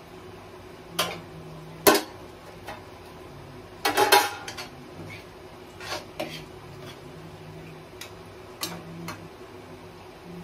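Steel serving spoon clinking and scraping against a steel kadhai as food is dished out: scattered sharp clinks, with a quick run of them about four seconds in.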